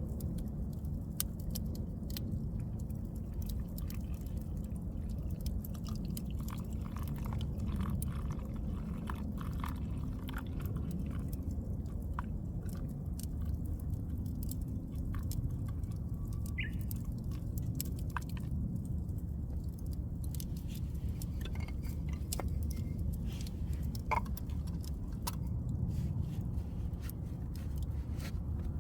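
Wood campfire crackling, with scattered small pops and snaps over a steady low rumble.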